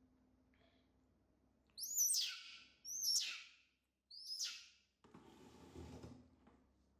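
Baby macaque giving three short high-pitched squealing calls in quick succession, then a softer rustle for about a second and a half.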